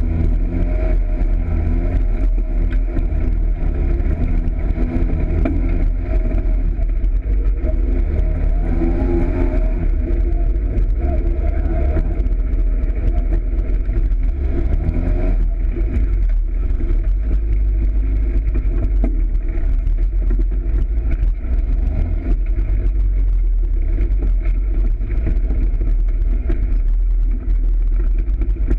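Polaris RZR side-by-side's engine running under way over a rough dirt trail, under a constant heavy low rumble. The engine pitch rises and falls with the throttle in the first half, then runs steadier from about halfway.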